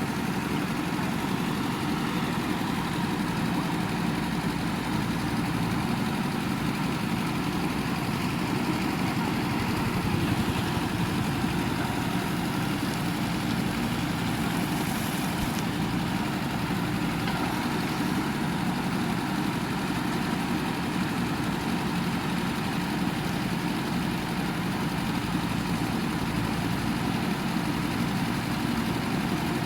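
Diesel engine of a JCB 3DX backhoe loader running steadily at a low, even speed.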